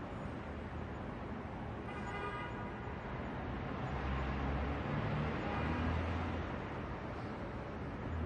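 New York City night traffic ambience heard from a rooftop: a steady wash of traffic noise. A louder low rumble, like a passing vehicle, swells from about four to six and a half seconds in, and a brief faint high tone sounds about two seconds in.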